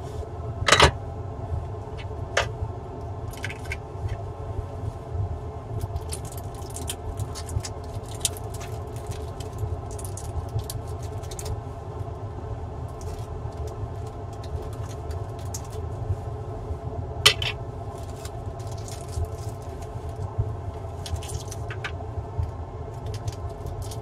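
Light clicks, taps and scrapes of tools and a laptop motherboard being handled on a repair mat, with two sharper knocks, one about a second in and one about two-thirds of the way through, over a steady low hum.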